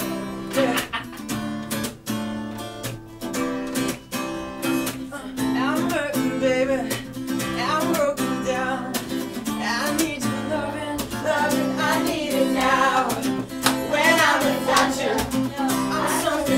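Acoustic guitar strummed in a steady rhythm, with voices singing along from about six seconds in; near the end a group of children is singing.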